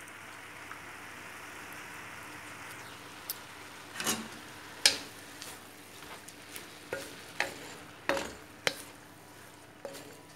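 Spinach and carrot stir-fry sizzling in a hot dark pan. About three seconds in the hiss fades, and a wooden spatula knocks and scrapes against the pan about eight times as the greens are tossed.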